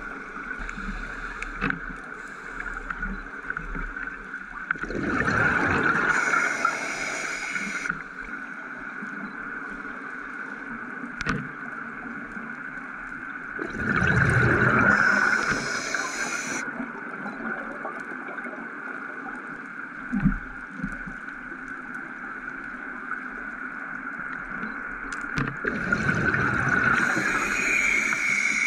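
Scuba diver breathing through a regulator underwater. Three breaths come about ten seconds apart, each a loud bubbling rush of air ending in a short hiss, over a steady high hum.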